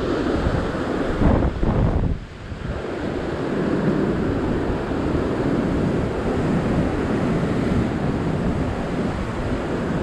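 Heavy surf breaking and surging over a rock ledge as a steady wash of whitewater, with wind rumbling on the microphone, strongest in the first two seconds.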